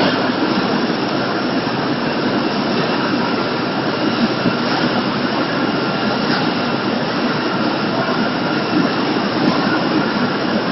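Automatic poultry slaughter processing line running: a loud, steady mechanical din with a few faint steady whining tones.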